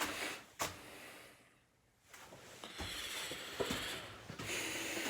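Faint footsteps and handling noise with a few soft knocks, cutting out to dead silence for about a second.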